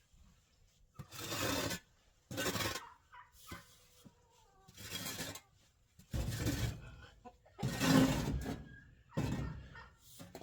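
Shovel scraping and scooping through loose chicken-pen compost and litter, about seven rough strokes a second or so apart.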